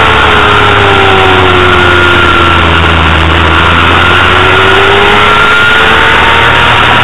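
Honda CBR250RR inline-four race engine heard from an onboard camera under heavy wind rush. The engine note sinks until about three seconds in, then climbs steadily as the bike is driven out of the corner.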